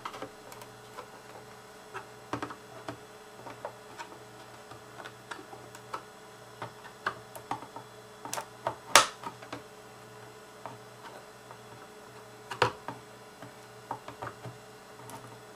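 Irregular small plastic clicks and pops as a screwdriver and fingertip pry the snap-fit roof off a Walthers auto rack model car, the clips popping loose one by one. The loudest snap comes about nine seconds in, another near the end.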